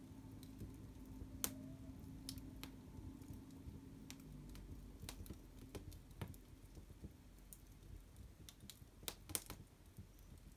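Fire crackling: irregular, quiet sharp pops. One stronger pop comes about a second and a half in, and a quick cluster of louder ones near the end.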